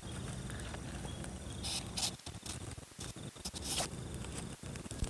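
Wood bonfire crackling, with a few sharp pops about two seconds in and again near four seconds, over a steady low rumble.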